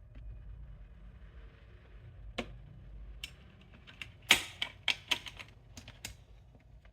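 Scattered sharp plastic and metal clicks and taps of computer parts being handled and fitted on a bare desktop motherboard, the loudest a little over four seconds in, over a low steady hum.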